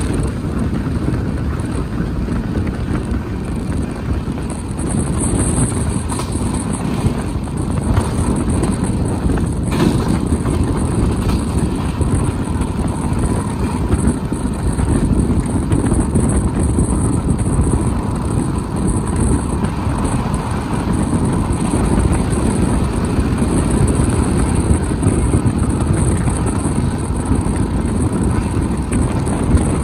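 Passenger train running on the line: a steady rumble of wheels on the rails, with occasional faint clicks.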